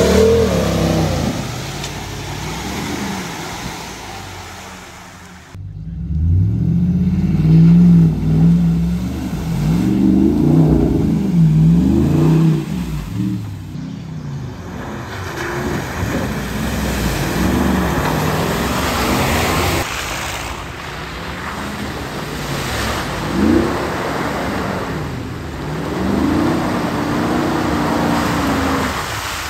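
Ram heavy-duty pickup truck engines revving up and down in repeated surges while the trucks plough through mud puddles, with water and mud splashing against the bodywork. The sound changes abruptly about five and a half seconds in and again about halfway through.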